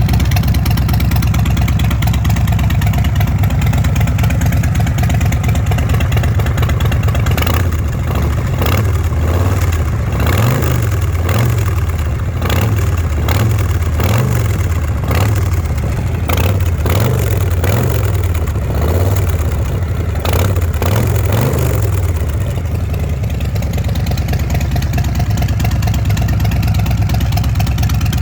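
An engine running at idle, revved in a string of short blips about once a second from about eight seconds in until about twenty-two seconds in, then settling back to idle.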